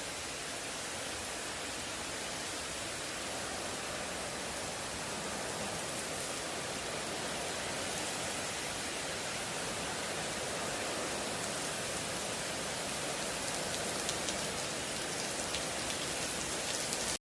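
Heavy hurricane rain and wind: a steady, even hiss with a few faint ticks, growing a little louder toward the end. It cuts off abruptly right at the end.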